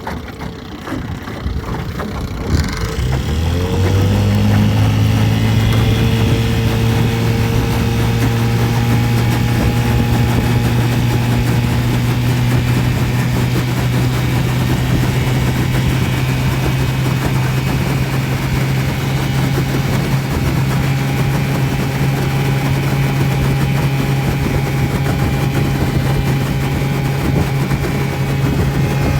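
Small outboard boat motor revving up about three seconds in, then running steadily at a constant speed.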